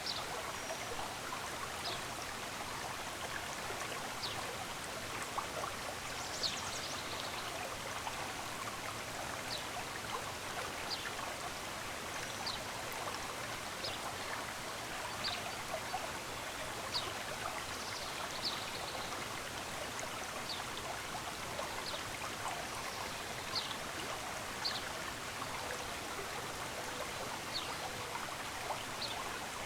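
Running stream, a steady rush of water, with short high bird chirps every second or two.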